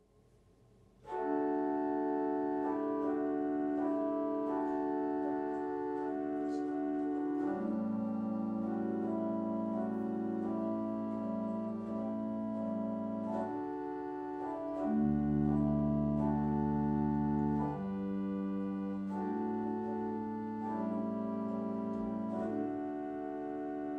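Pipe organ playing slow, held chords, starting about a second in. Deep bass notes join partway through, and a very low held bass note around two-thirds of the way in is the loudest moment.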